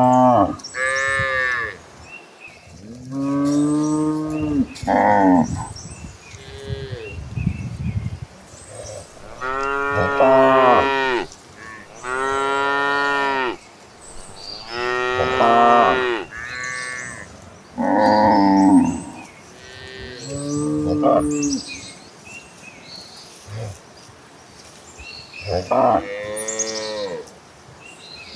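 Cattle of a herd mooing: about a dozen long calls one after another, from cows at different pitches, some calls bending up and down in pitch.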